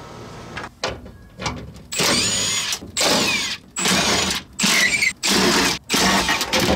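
Cordless driver run in about six short trigger bursts, backing out the screws of a car's under-dash heater box cover. A few small clicks come before the bursts.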